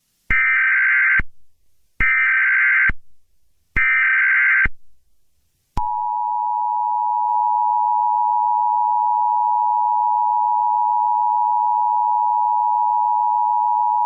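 Emergency Alert System tones: three short, buzzy SAME data header bursts about a second and a half apart. They are followed by the steady two-tone EAS attention signal, held for about eight seconds and then cut off.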